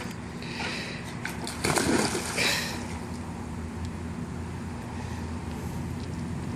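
A child jumping into a swimming pool: a splash about one and a half to two and a half seconds in, then the water sloshing, over a steady low hum.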